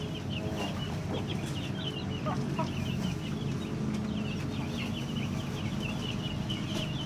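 A flock of Bangkok chickens clucking, with many short high chirps throughout and a few lower calls, over a steady low hum.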